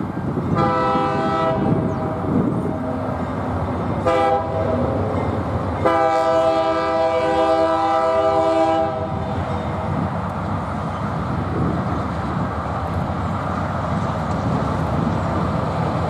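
GE C40-8M diesel locomotive sounding its air horn for a grade crossing: a blast of about a second, a short blast, then a longer blast of about three seconds. The locomotive and its train of tank cars rumble steadily underneath as they roll past.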